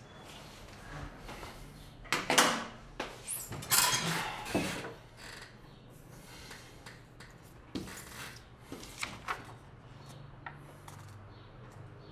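Handling noises at a desk: a cluster of rustling, scraping bursts about two to five seconds in, as of sitting down and moving things on the desk, then scattered light clicks and taps as papers are handled.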